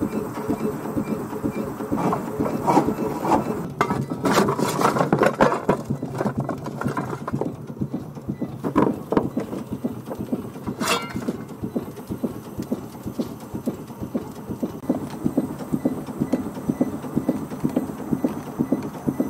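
A 1916 Ransomes, Sims & Jefferies steam traction engine in steam, making a steady rapid rhythmic pulsing. Louder clattering and scraping comes about four to six seconds in, and there is a single ringing metal clink about eleven seconds in.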